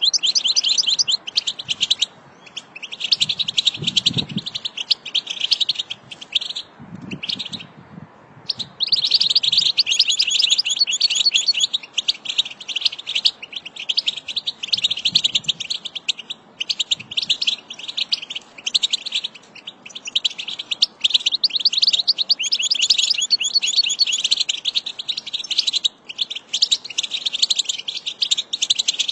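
European goldfinch singing: rapid, high twittering song in long runs broken by brief pauses.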